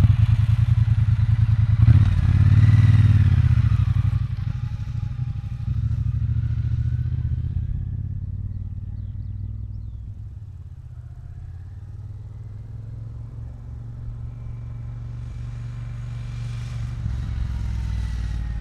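Triumph Bonneville T120's 1200cc parallel-twin engine pulling away and revving up, loudest in the first few seconds, then fading as the motorcycle rides off. Over the last few seconds it grows louder again as the bike comes back along the road.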